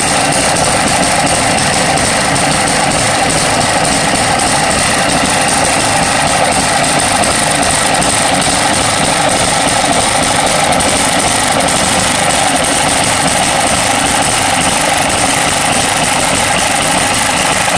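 Small model hit-and-miss engine running steadily, belted to an antique pencil sharpener.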